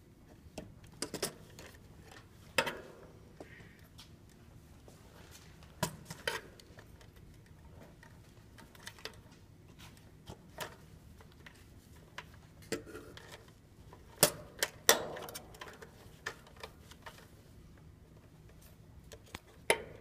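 Irregular clicks and taps of needle-nose pliers and crimp terminals as control wires are pushed back onto an air-conditioner contactor's terminals, with wires rustling against the sheet-metal cabinet in between; a few of the clicks are sharp and loud.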